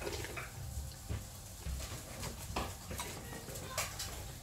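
Close-up eating sounds: chewing noodle soup, with a metal spoon clicking against a glass bowl several times.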